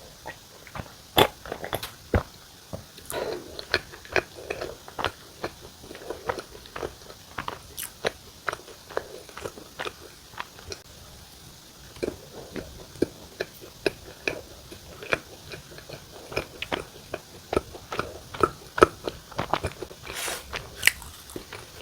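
Close-miked eating: bites and chewing of buttered bakery bread, with irregular wet mouth clicks and soft crunches.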